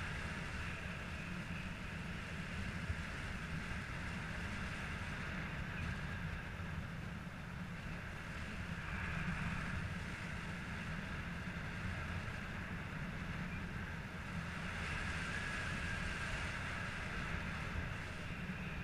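Steady rushing wind noise from the airflow past a paraglider in flight, buffeting the camera microphone with a dense low rumble and a hiss that swells and eases slowly.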